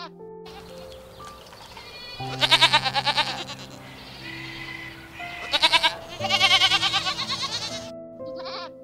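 Goats bleating three times, each bleat wavering, the last one the longest, over soft background music with long held notes.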